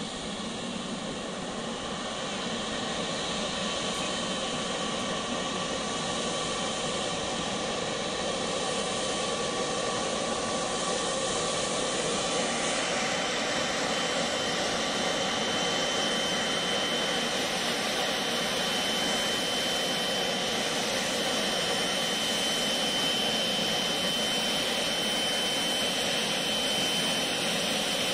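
Boeing 777 freighter's jet engines running at taxi power as it rolls closer: a steady rush with a high whine, growing slowly louder through the first half.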